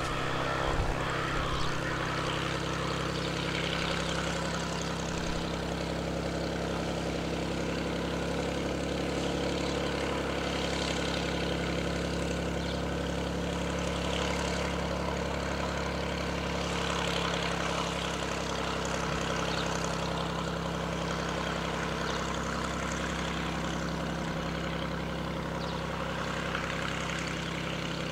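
Beechcraft A36 Bonanza's six-cylinder piston engine and propeller running steadily at taxi power.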